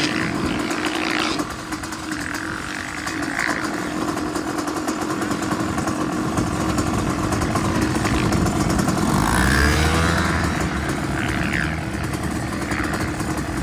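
Pit bike engines running on a motocross track, with a steady engine hum and a few brief revs. The sound grows louder and heavier a little past the middle, as a bike comes close.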